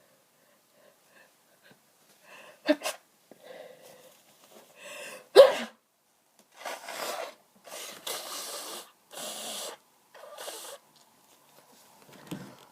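A person sneezing from hay fever: two short, sharp sneezes about three seconds apart, the second the louder, with small breaths between. Then the nose is blown four times in a row, each a rushing blast of air of about half a second to a second.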